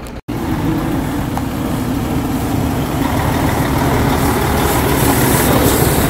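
Diesel engine of a heavy truck pulling a dump trailer, running steadily as it drives slowly past on a dirt road, growing gradually louder, with a hiss joining about four seconds in.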